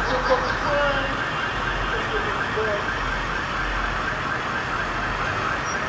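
Emergency vehicle siren on a fast yelp, rising and falling several times a second.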